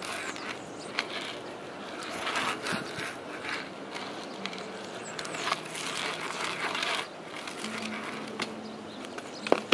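BMX bike tyres rolling and scrubbing on concrete during flatland tricks, the hiss swelling and fading in several bursts, with a few sharp clicks and knocks from the bike, the sharpest about a second in and near the end.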